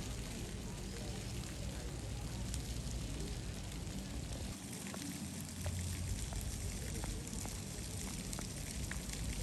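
Ground-level fountain jets splashing onto wet paving: a steady hiss of falling water with many small scattered splashes.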